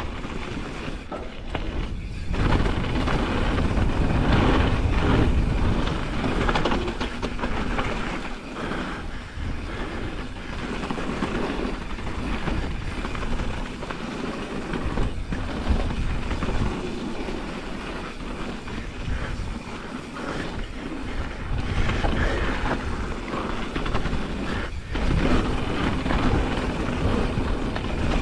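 Pivot Firebird enduro mountain bike descending a dirt singletrack: knobby Continental Kryptotal tyres rolling over dirt and roots, with the frame, chain and suspension rattling and knocking over bumps. The noise swells and eases with speed and terrain, with frequent sharp knocks throughout.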